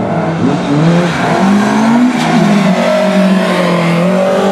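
Rally car engine at full throttle, its pitch climbing with short drops between climbs, then holding high and steady.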